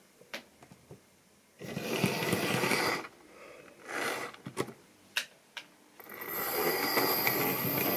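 Model railway locomotives running on sectional track. There is a rough whirring and rattling of motor and wheels for about a second and a half near the start, then a few sharp clicks as wheels cross rail joints and points. From about six seconds in, a diesel shunter's electric motor sets up a steady whine with a high tone.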